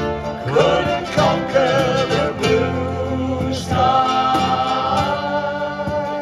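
Ukulele band playing live: several strummed ukuleles and a guitar, with voices singing along and a long held note in the second half.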